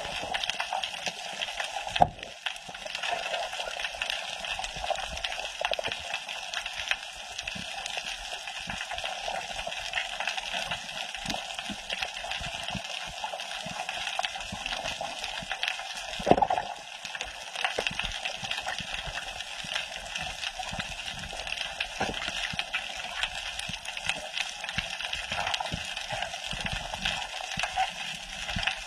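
Underwater reef sound heard through an action-camera housing: a steady hiss with many small clicks throughout, and two louder knocks, about two seconds in and about sixteen seconds in.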